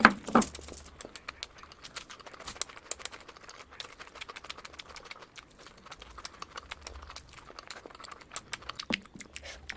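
Close-miked eating sounds of mutton fat curry with rice: a steady stream of wet chewing and lip-smacking clicks, with a louder wet mouthful right at the start.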